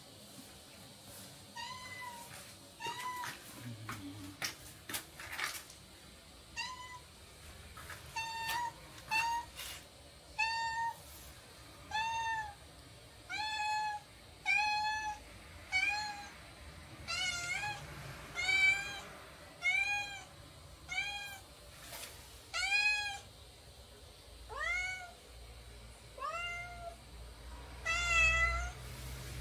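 Domestic cat meowing over and over, about twenty short meows roughly a second apart, demanding to be let out the front door. A few faint clicks sound early on between the first meows.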